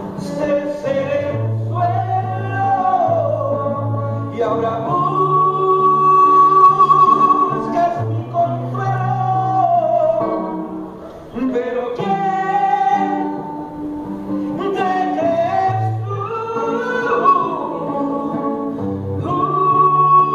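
A man singing a slow ballad with long held notes, accompanying himself on acoustic guitar, amplified through a PA speaker.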